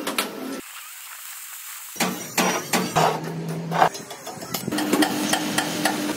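Steel fabrication at work: a run of sharp metallic taps and knocks, with the crackle of arc welding. A steady hum comes in past the middle.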